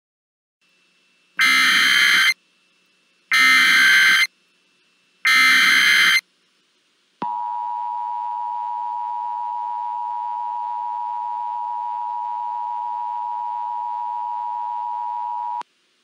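Emergency Alert System alert opening: three harsh bursts of digital data noise, each about a second long (the SAME header), then the steady two-tone EAS attention signal held for about eight seconds before it cuts off.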